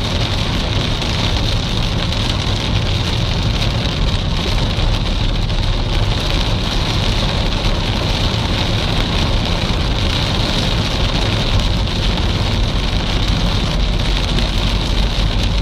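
Heavy rain pelting a moving car's windshield and roof, heard from inside the cabin over the steady low rumble of the car driving on a wet road.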